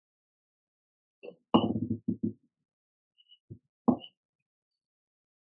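A few short, sharp knocks in two quick clusters, one about a second and a half in and a pair near four seconds, with dead silence between them.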